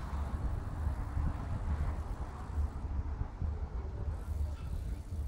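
Wind buffeting a phone's microphone while cycling, an uneven low rumble with a light hiss over it.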